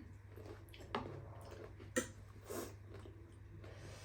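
Quiet chewing and mouth sounds of someone eating, with a few small clicks, over a steady low hum.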